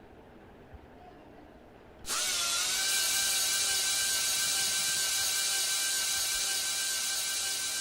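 Electric power drill starting about two seconds in, its whine rising briefly as the motor spins up, then running steadily at full speed.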